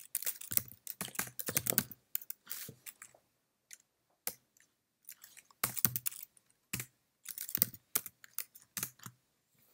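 Typing on a computer keyboard: irregular bursts of quick key clicks with short pauses between them, and a quieter stretch a few seconds in.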